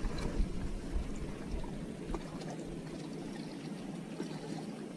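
Lake water lapping and trickling against a bass boat's hull, with low rumbling buffets in the first two seconds.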